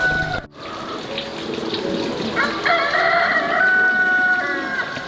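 A rooster crowing once, a long drawn-out call from about halfway in to near the end, over running water in the background.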